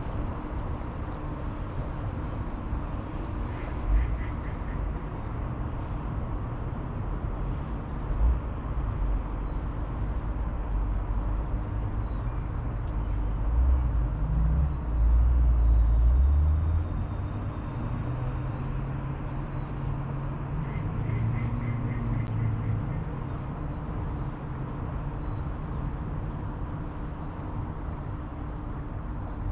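Riverside ambience with a steady background hiss, and ducks quacking in two short, quick runs, once near the start and again about two-thirds through. A low rumble swells several times, loudest around the middle.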